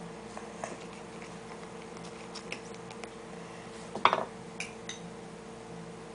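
Light clinks and knocks of tableware, with a louder clatter about four seconds in as a small cup is handled on the table, over a steady hum.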